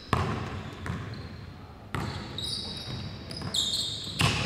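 Basketball dribbled on a hardwood gym floor, a bounce roughly every second, with sneakers squeaking on the floor in the second half.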